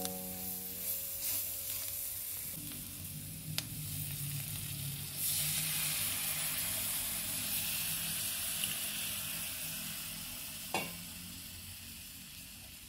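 Onions and flour in butter sizzling in a hot nonstick pan as a wooden spatula stirs them. About five seconds in, milk is poured in and the hiss jumps louder, then slowly dies down; there is one sharp knock near the end.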